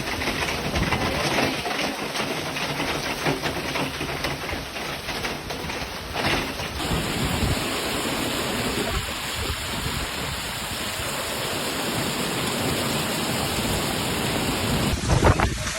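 Heavy monsoon downpour: a dense, steady hiss of pouring rain. The sound changes abruptly about seven seconds in.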